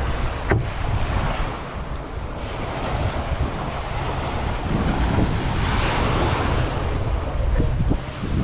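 Waves breaking and washing up a sandy beach, with wind buffeting the microphone; the surf swells louder about five seconds in.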